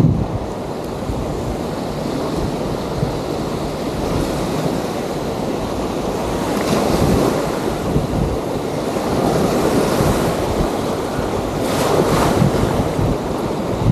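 Small sea waves washing onto a sandy beach, with wind rumbling on the microphone. The surf swells up twice, about halfway through and again near the end.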